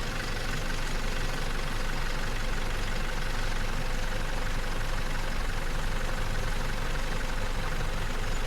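Lorry's diesel engine idling steadily.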